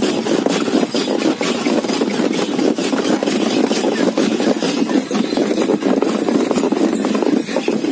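Steady rumble and rattle of a moving camel cart, with rapid, regular clicking from the cart as it rolls over rough ground.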